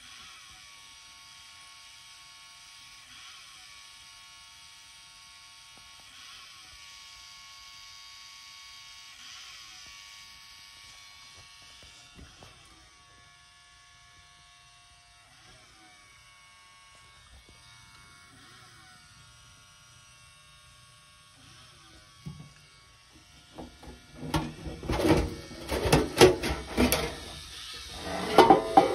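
Sony MXD-D40 CD/MiniDisc deck's disc drive running faintly while it tries to read a disc's table of contents. A soft sweep repeats about every three seconds, the drive retrying without getting past the read. About 24 seconds in, loud irregular knocks and clatter of the unit's metal casing being handled as the top cover comes off.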